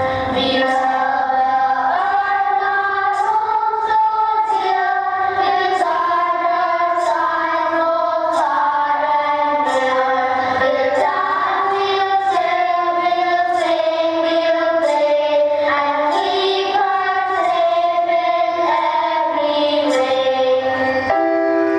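A song sung by young voices over instrumental backing with a light, regular beat.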